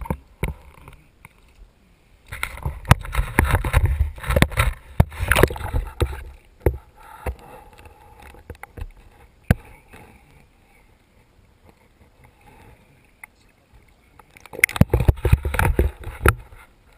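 Water churning and gurgling around a camera dipped underwater, with knocks and clicks. It comes in two noisy bursts, one starting about two seconds in and a shorter one near the end, with scattered ticks between.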